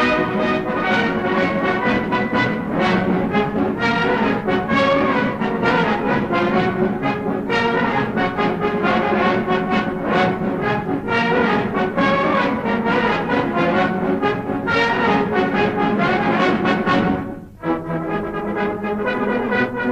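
Military brass band playing, loud, with sharp accented notes throughout. About seventeen seconds in the music drops away for a moment and comes back with held chords.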